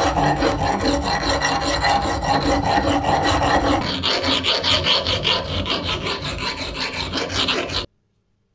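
Hand file rasping along the edges of a metal book-press lever arm held in a vise, in steady repeated strokes to round the edges to an even radius. The rasp turns brighter and higher about halfway through, then stops suddenly near the end.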